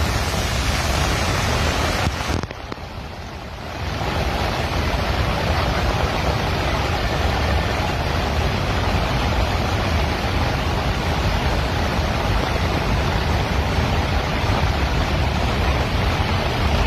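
Steady, loud rushing of a muddy flash-flood torrent pouring down a hillside, with heavy rain. The noise drops for a second or so about two and a half seconds in, then comes back at full strength.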